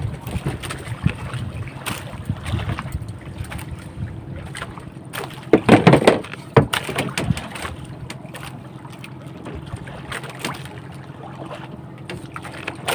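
Small motorised outrigger fishing boat under way, its engine running steadily beneath wind and water noise. A loud rush of noise comes about six seconds in.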